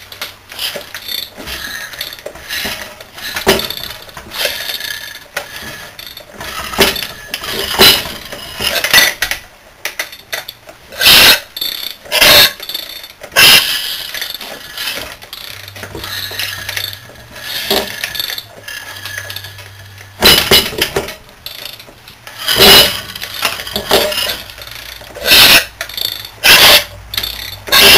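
Tools clanking and knocking on a bare engine being worked on: irregular sharp metal strikes and clinks, several of them loud.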